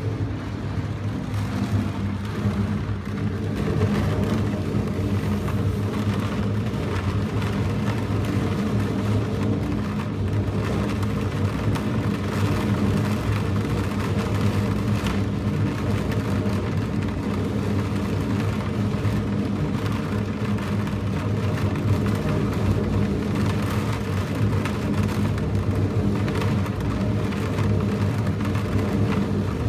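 Storm wind of about 20 m/s buffeting the microphone as a steady low rumble, mixed with heavy surf breaking over rocks.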